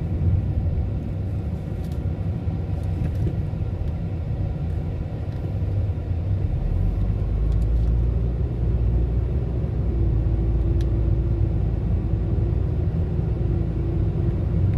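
Steady low rumble of road and engine noise inside a moving car's cabin. A faint steady hum joins in about ten seconds in.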